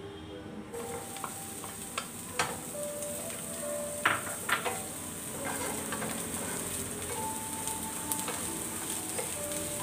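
Diced onion sizzling in hot oil in a non-stick frying pan, the sizzle starting about a second in, with a wooden spatula clicking and scraping against the pan as it is stirred.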